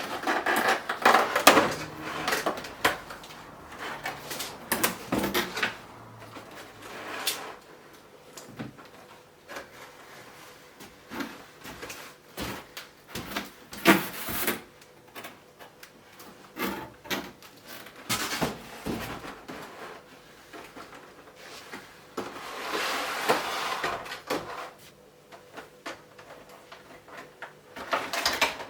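Toy packaging being handled and unpacked: irregular rustling, scraping and knocking of cardboard and plastic.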